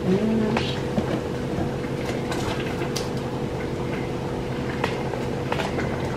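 A steady mechanical hum with a constant tone, under a few light clicks and scrapes of a wooden spoon stirring in a pot and a plastic bag being emptied into it.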